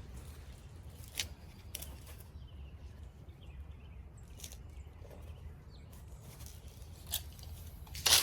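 Low background hum with a few scattered light clicks and tool-handling knocks, then an angle grinder switching on right at the end and starting to run loudly.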